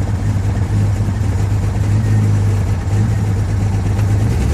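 2000 Jeep Cherokee XJ engine idling steadily. The owner says it is misfiring and idling rough.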